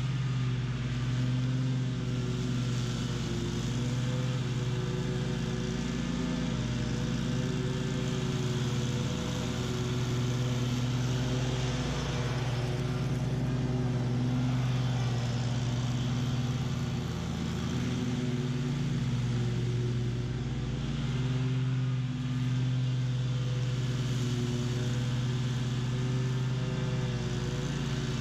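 BOB-CAT QuickCat 36-inch stand-on mower running steadily while mowing tall, thick weeds, its engine and spinning blades making a continuous drone that holds even throughout.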